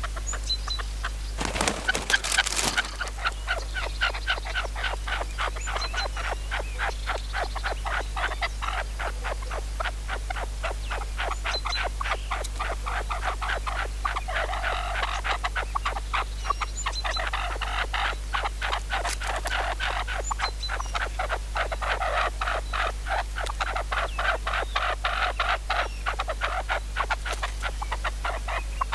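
Red-legged partridges calling, a continuous rapid series of short chattering notes. A brief loud burst of noise comes about two seconds in.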